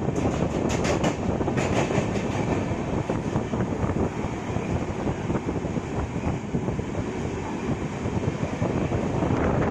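Running noise of an LHB express train coach heard from on board: a steady rumble of wheels on rail, with a quick run of sharp clicks in the first two seconds.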